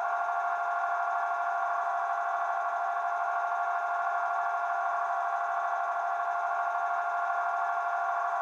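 Class 33 diesel locomotive sound played by a DCC sound decoder through the small speaker of an OO-gauge model, with the locomotive standing and its engine idling. It is a steady, thin tone with no bass.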